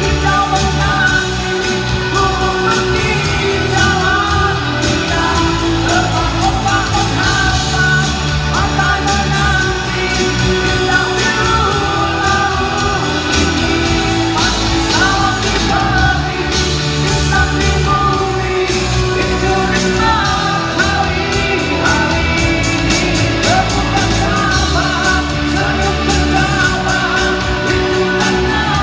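Live rock band playing a song with a lead singer over drums and electric guitars.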